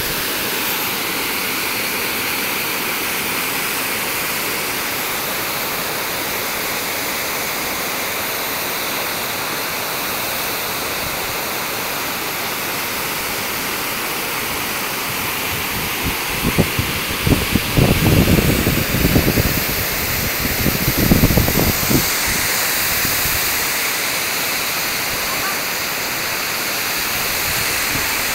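Gadelsha waterfall rushing steadily. For several seconds past the middle a louder, uneven low rumbling rises over it.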